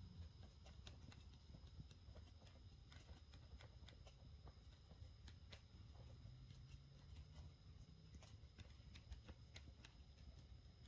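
Near silence: faint, irregular ticks over a low steady hum.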